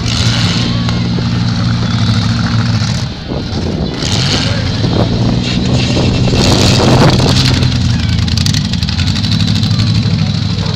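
Engines of full-size demolition derby cars running loud and hard, dipping briefly about three seconds in. Around two-thirds of the way through comes a loud stretch of crashing and scraping as cars ram each other.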